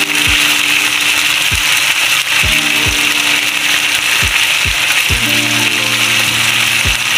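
Onions and whole spices frying in hot oil with a splash of water in a pan, a steady loud sizzling hiss. Background music with deep bass beats plays over it.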